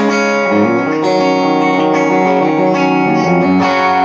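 Electric guitar played through an amp over a Joyo wireless transmitter: ringing chords that change every second or so. The sound runs on without any cut-outs.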